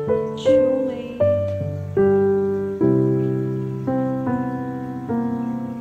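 Background music: keyboard chords, a new chord struck roughly every second and left to ring and fade.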